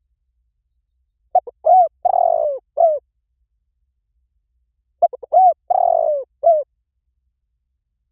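Spotted dove cooing: two phrases about four seconds apart. Each opens with a couple of quick short notes, then a coo, a longer rough rolling coo, and a final coo.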